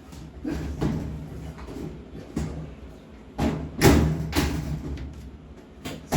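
Scattered knocks and clunks, the loudest a pair about three and a half and four seconds in, from a washing machine's cabinet and parts being handled during repair.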